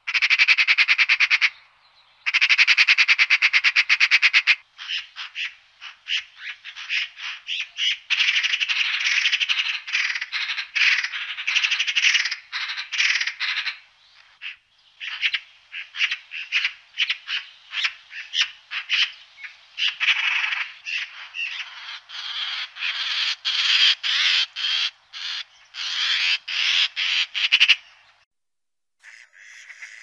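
Magpies chattering: two long, rapid rattling calls in the first few seconds, then many shorter rattling bursts that stop a couple of seconds before the end.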